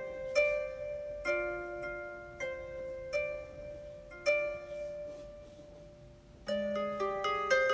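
Gentle background music of slow plucked notes, each ringing and fading, that become busier near the end as lower notes join in.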